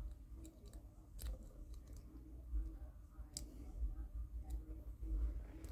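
Lock pick working the pins of a small five-pin Abus 72/30 padlock: scattered, faint metallic clicks over low handling rumble.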